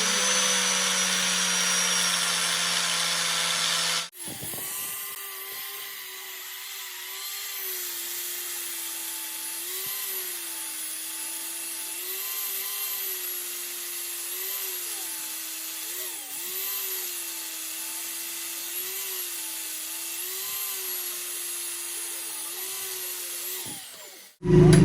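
Electric power tool motor running. At first it is a loud steady hum. After a cut about four seconds in, it becomes a higher steady whine whose pitch dips briefly every second or two as the tool is pressed into the work.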